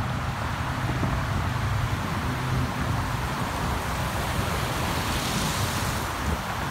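Water pouring over a small stone weir, a steady rushing hiss that grows brighter about five seconds in, with wind rumbling on the microphone underneath.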